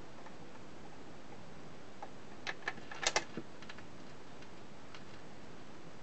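Portadyne record player's autochanger cycling: a cluster of sharp mechanical clicks and clunks about two and a half to three and a half seconds in as the tone arm swings over and sets down on the record, over a steady hiss. Faint scattered ticks follow.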